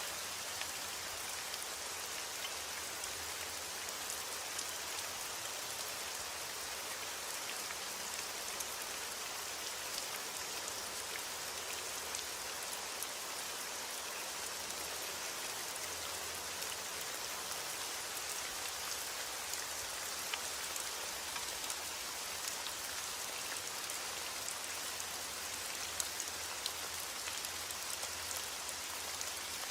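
Steady rain falling, with an even hiss and scattered small drop ticks landing on a surface.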